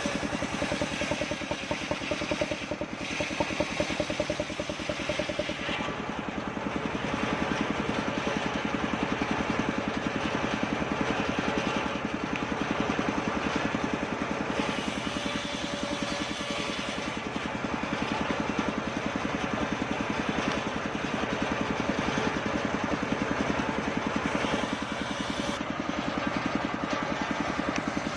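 Engine-driven circular saw running steadily, with a fast, even pulse throughout, while its blade slices kapok wood into boards.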